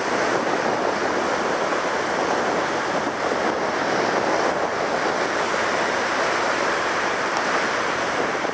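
Steady wind noise on the microphone mixed with the rush of water, heard from the open deck of a boat.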